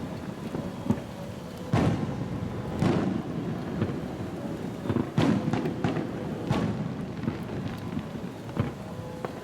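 Fireworks display: aerial shells bursting in a series of heavy booms, irregularly spaced a second or two apart, with rumbling and crackle between them.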